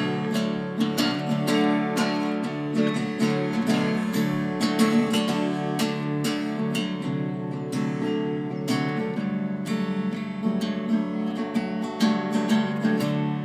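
Tanglewood acoustic guitar strummed, a steady run of chord strokes ringing on without vocals.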